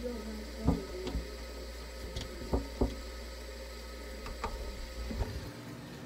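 Steady low hum of a mini fridge, muffled, heard from inside its closed cabinet, with a few faint clicks scattered through; the hum cuts out about five and a half seconds in.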